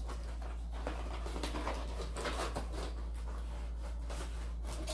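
Rustling and crinkling of comic packaging (cardboard and plastic bags) being handled and opened, with many small irregular crackles, over a steady low hum.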